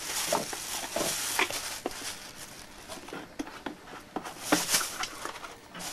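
Plastic carrier bag rustling and things being moved about in a drawer: irregular crinkles and light knocks.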